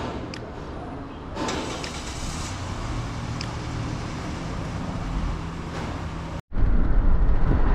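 Road noise of a moving vehicle, a steady rumble with a few light knocks. After a brief cut about six and a half seconds in, the low rumble comes back louder.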